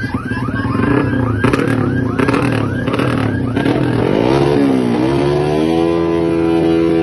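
Drag-bike motorcycle engine revving hard. A repeating warbling chirp runs over it for the first three seconds, with sharp crackles mixed in. Around four to five seconds in the engine pitch dips and climbs again, then holds steady at high revs.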